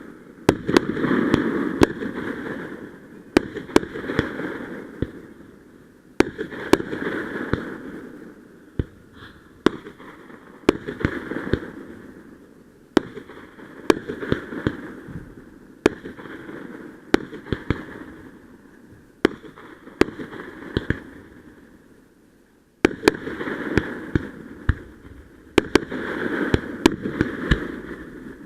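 Fireworks display: sharp bangs of bursting shells every two to three seconds, each followed by a swelling rush of noise that fades away. There is a short lull near the end before the bangs resume.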